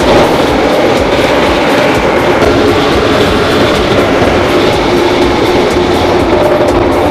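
A top-and-bottom sanding line running: the sanders' motors, sanding rollers and feed conveyor make a loud, steady mechanical noise with a constant hum.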